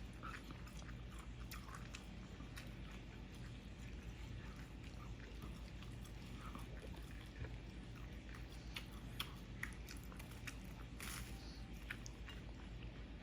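Toddler chewing food: faint, scattered small mouth clicks and smacks over a low steady background hum.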